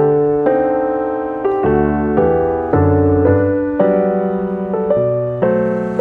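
Background piano music: slow, gentle chords struck every second or so, each ringing on and fading.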